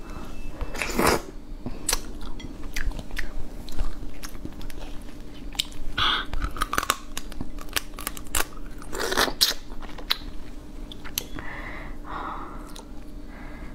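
Close-up eating of a soy-marinated raw crab: crab shell cracking and crunching between the teeth, wet chewing and sucking at the meat and roe, with three louder slurps spread through.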